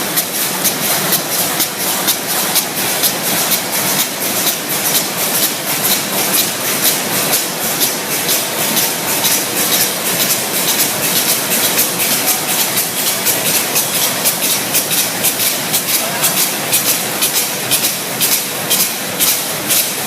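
Roll slitting machine running: a steady mechanical clatter with a regular ticking at about three a second.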